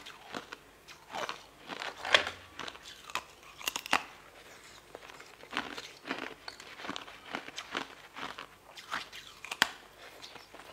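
Close-up mouth sounds of biting and chewing translucent jelly candy shaped like lotus-root slices: irregular sharp, crisp clicks and crunches, loudest about two and four seconds in and again near the end.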